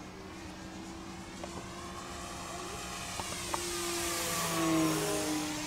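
Electric motor and propeller of a Flyzone Switch RC floatplane whining as it flies past, growing louder to a peak about three-quarters of the way through, its pitch dropping as it goes by, then fading.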